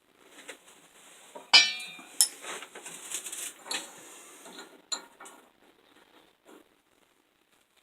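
Steel tools clinking and tapping on steel flat bar, with one sharp ringing metallic strike about a second and a half in, a second hit soon after, then lighter clinks that die away.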